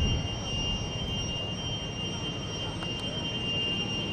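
Fouga CM.170 Magister's twin Turbomeca Marboré turbojets running with a steady high whine over a low rumble.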